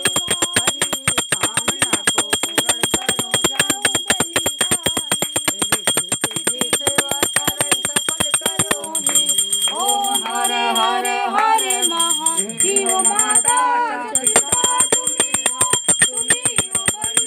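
Hand-held brass puja bell (ghanti) rung rapidly and evenly for the aarti, about six strokes a second, with a short break in the ringing a little past two-thirds through. Women sing the aarti over it, loudest in the middle stretch.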